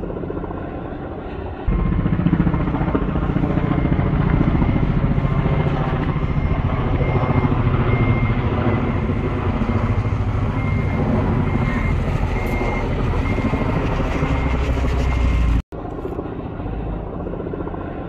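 Helicopter rotor beating in a fast, even chop overhead. It gets louder about two seconds in, cuts out for an instant near the end and comes back quieter.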